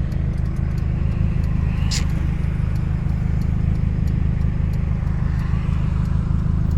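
Inside a moving car: steady road and engine noise under a deep bass beat that pulses evenly, with one short sharp click about two seconds in.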